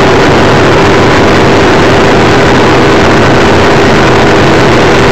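Bass boat's outboard motor running steadily at speed, a constant hum under a loud rush of wind and water.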